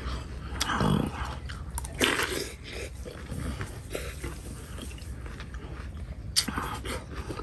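Close-up, wet chewing of a mouthful of fresh sliced chili peppers and rice noodles, in irregular bites, with a sharp click about six seconds in.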